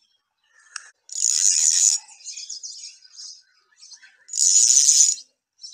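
Birds singing: a high buzzy trill comes twice, about three seconds apart, with softer scattered chirps between.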